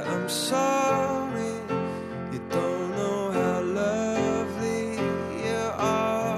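A song with guitar and a gliding sung melody.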